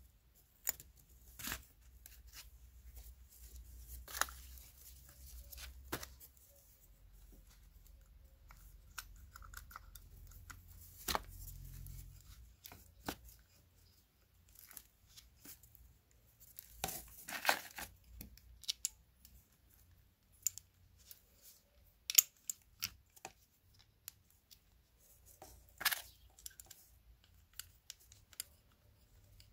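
Hands handling car starter motor parts on cardboard: scattered clicks and knocks of metal parts with short bursts of cardboard and glove rustling. The busiest stretch of rustling is just past the middle, and one sharp click stands out a few seconds later.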